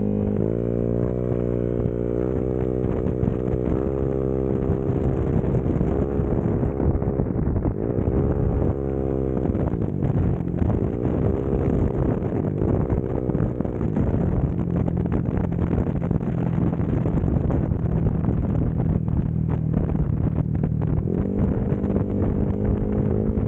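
Motorcycle fitted with a JVT V4 teardrop aftermarket exhaust pipe running while being ridden. The exhaust note rises as the bike accelerates and falls back several times, with a steadier stretch of cruising in between.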